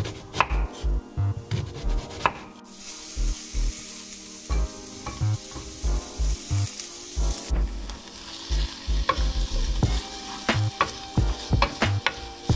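A knife chops an onion on a wooden cutting board for about the first two seconds. The sliced onion is then slid into a saucepan of hot oil, which starts a loud sizzle that cuts off suddenly about five seconds later. After that, a wooden spoon stirs the frying onions with scattered clacks against the pan.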